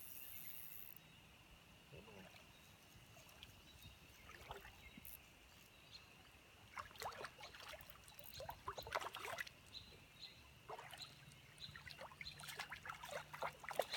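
Quiet creek water: a faint steady trickle with soft irregular splashes a second or two apart.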